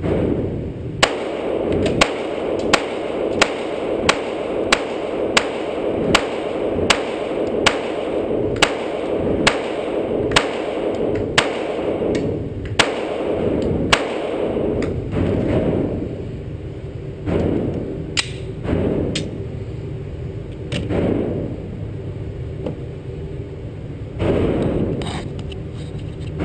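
Glock 17C 9mm pistol fired in a steady string of about eighteen shots, roughly one every two-thirds of a second, for about fourteen seconds in an indoor range hall. A few fainter scattered knocks follow in the second half.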